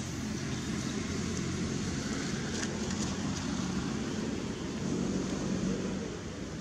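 Steady low hum of motor traffic, swelling a little about five seconds in, with a few faint clicks.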